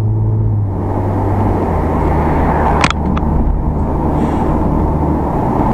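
Car cabin noise while driving: engine and tyre-on-road rumble. The low engine hum drops in pitch a little about a second in, and two short sharp clicks come near the middle.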